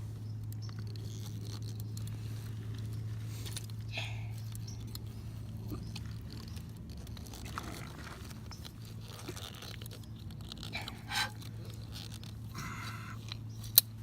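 Scraping and crunching as PVC water pipe and fittings are worked by hand, over a steady low hum, with a sharp click just before the end.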